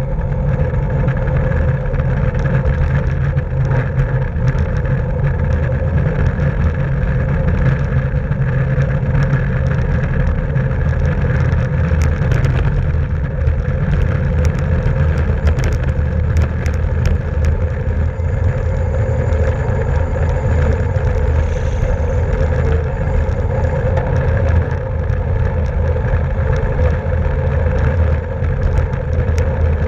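Steady rush of wind and tyre/road noise on the microphone of a camera carried on a racing bicycle at speed, with a run of light clicks about halfway through.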